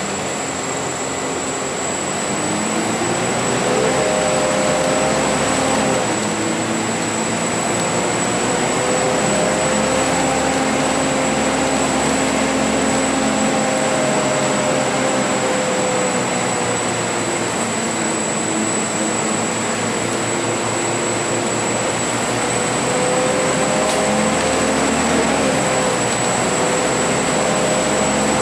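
Volvo B10BLE CNG city bus heard from inside the saloon while under way: the engine and drivetrain rise in pitch as it pulls away and pass through gear changes, over steady road and tyre noise.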